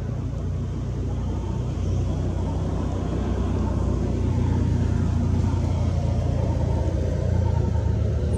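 Steady low rumble that swells slightly partway through.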